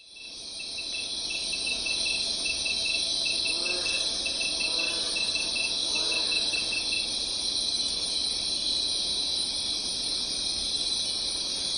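A steady, high-pitched insect chorus of crickets or similar insects that fades in at the start. A pulsed trill sits just below it and stops about halfway through. Three faint lower calls come around the middle.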